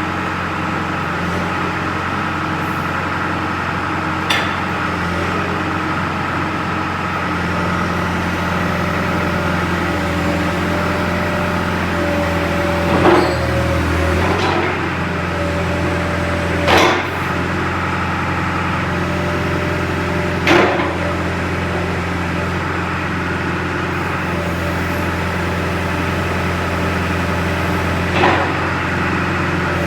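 John Deere 410G backhoe loader's four-cylinder diesel engine running steadily, with a handful of sharp knocks about 4, 13, 17, 21 and 28 seconds in.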